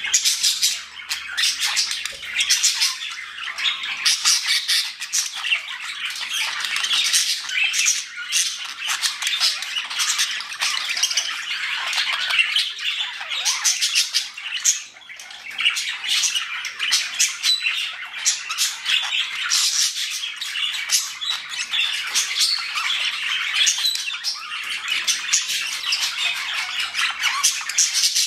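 Budgerigars chattering and warbling without pause, a dense run of quick chirps, squawks and clicks.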